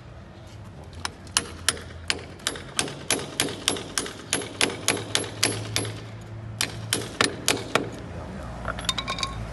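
Hammer striking a steel chisel to chip away a rendered wall: a steady run of sharp metallic blows, about three a second, with a short pause after about six seconds. A few lighter, quicker taps near the end.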